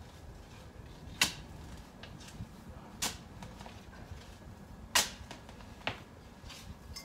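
Digging: a garden tool chopping into soil in four sharp strikes, one or two seconds apart, to dig out a clump of lily.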